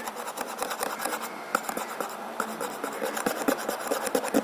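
Glitter slime squished and stretched in the hands, giving a steady run of quick wet clicks and crackles.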